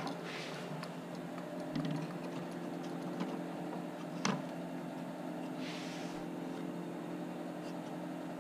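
Steady low hum of workshop room tone, with a few light clicks and taps as laser-cut plywood hull parts are handled and fitted together. There is a sharper click about four seconds in and a short brushing rub around six seconds.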